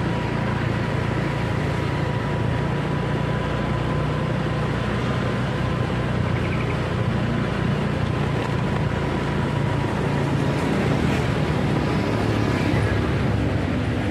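Vehicle engine running steadily at low speed, a constant low hum with road and wind noise and a faint steady whine above it.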